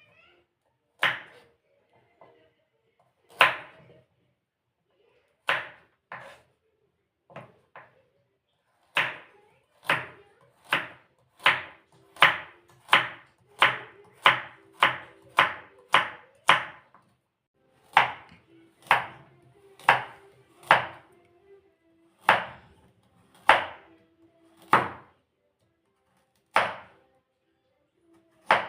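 Kitchen knife chopping food on a cutting board: single sharp strokes, spaced out at first, quickening to about two a second in the middle, then slowing again.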